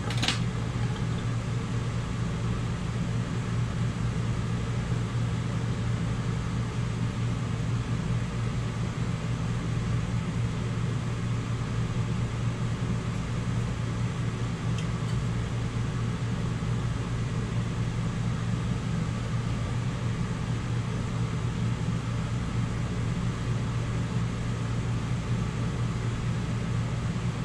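Steady low hum and whir of a fan running, unchanging throughout, with a single light click about a second in.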